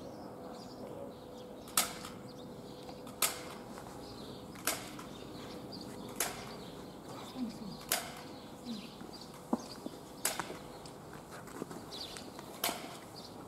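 Footsteps on stone paving: sharp, hard clicks about once every second and a half, with small birds chirping faintly.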